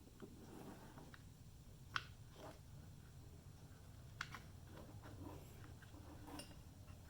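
Quiet handling of a truck door latch assembly as its metal rod is fitted back in: faint taps and two sharper clicks, about two seconds apart, over a low hum.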